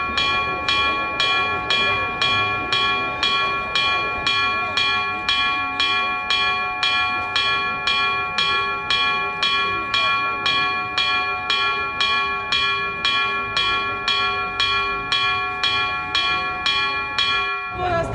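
A single church bell rung in a rapid, even peal, about two to three strokes a second, each stroke's ring running into the next. It stops abruptly near the end.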